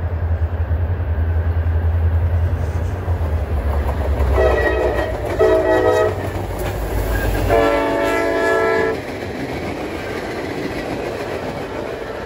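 Two CSX diesel freight locomotives pass close by with their engines running and sound the horn: two short blasts about four seconds in, then a longer blast. After the locomotives go by, the engine drone drops away and the freight cars roll past on the rails.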